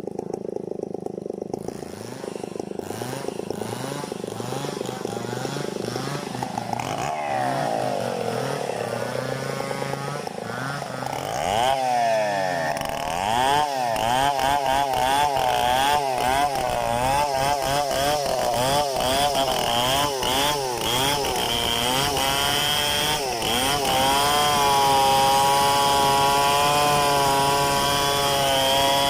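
Large two-stroke chainsaw running steadily, its pitch sliding down, then revved up and down repeatedly before being held at high revs for the last few seconds, the pitch wavering slightly as when the chain is cutting through wood.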